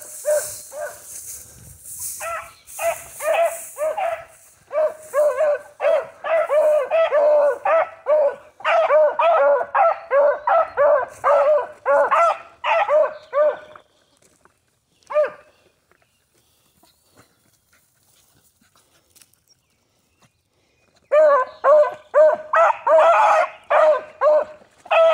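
Beagles baying in quick, short, repeated barks for about fourteen seconds, then one lone bark. After a few seconds of quiet, the baying starts again near the end.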